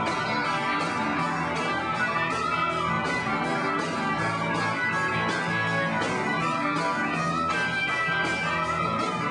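Live rock band playing, guitar over a steady beat, heard from the audience floor.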